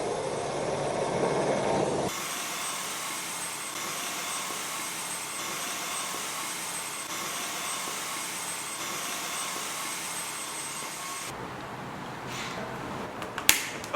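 Dyson vacuum cleaner running with a steady whir and a faint high whine, its sound shifting twice. A sharp knock near the end.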